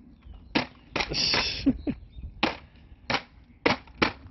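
Two plastic leaf-scoop hand rakes knocked together about six times, sharp irregular clacks, with a brief rustle about a second in.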